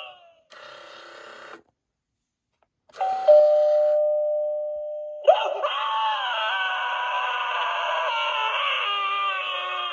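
Gemmy animated dropping-spider Halloween doorbell going through its effects through a small tinny speaker. After a brief faint sound and a pause, it plays a two-note ding-dong chime that fades. A couple of seconds later a long recorded scream starts, then tails off near the end.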